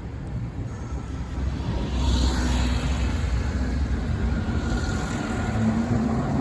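Hankai Tramway Mo 161-type tram pulling away from a stop: a low rumble that grows louder about two seconds in, with a faint steady motor hum over it.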